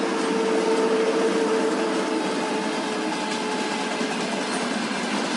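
Train running, a steady rushing rail noise with a faint steady whine underneath that slowly fades.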